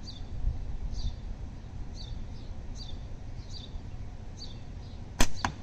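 A slingshot firing an 11 mm steel ball: one sharp, loud snap about five seconds in, followed a quarter second later by a fainter knock. A bird chirps throughout, a short high note about once a second.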